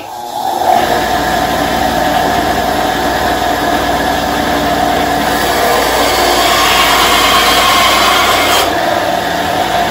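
SKIL 9-inch benchtop bandsaw starting up and running with a steady motor whine. Partway through, the blade cuts through a 1-inch piece of green maple, adding a rougher, brighter sawing noise that ends about a second before the close.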